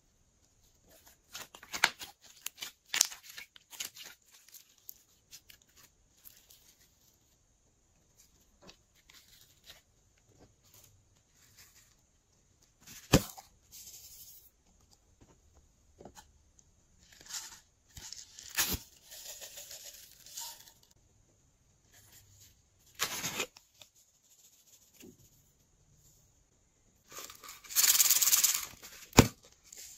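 Hands handling slime and small plastic containers of toppings: scattered crackly, rustling handling noises with a few sharp plastic clicks, and louder rushing bursts as add-ins are shaken and poured out, the longest near the end.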